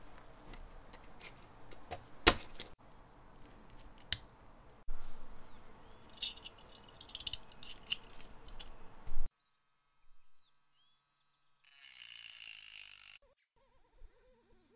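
Small metal lighter parts clicking and rattling as they are handled, with a sharp click about two seconds in and another about four seconds in. The sound cuts off suddenly about nine seconds in, leaving faint hiss.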